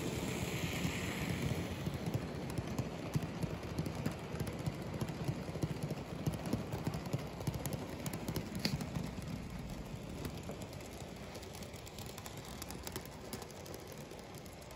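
N-scale model freight train running past on its track: a dense, rapid clicking and rattling of the small wheels on the rails, fading over the last few seconds as the train curves away.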